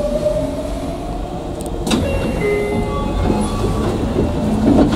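Tokyu 9000-series electric train running between stations: a whine from the traction motor's inverter glides up in pitch at the start, over a steady rumble of wheels on rail, with a sharp click about two seconds in.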